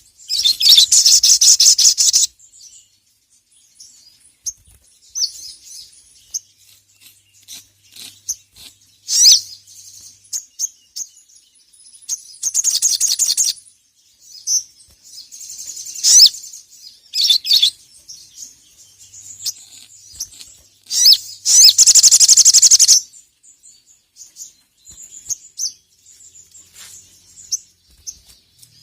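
Sogok ontong (sogon) sunbird singing: high-pitched, rapid buzzing trills of one to two seconds, loudest at the start, about halfway through and again near two-thirds of the way in, with short sharp calls and scattered chirps between them.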